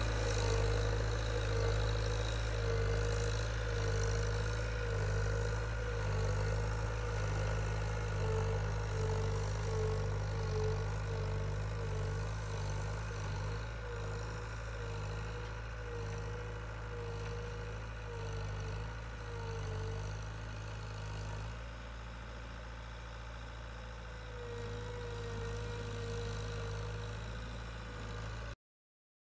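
Diesel engine of a Cat wheeled skid-steer loader running steadily as it works a grader attachment over loose dirt, with a wavering higher whine above the engine note, slowly growing fainter as the machine moves away. The sound cuts off abruptly near the end.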